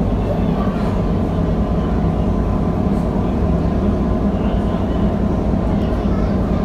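Boat engine running with a steady low drone, heard from the underwater viewing cabin inside the hull.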